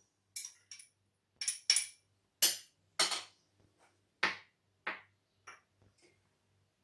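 Empty glass tumblers and small glass bowls being moved and set down on a countertop: a string of about ten separate sharp clinks and knocks, some ringing briefly.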